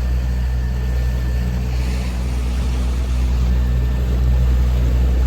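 Motorboat engine running steadily at cruising speed, a constant low drone with wind and water noise over it.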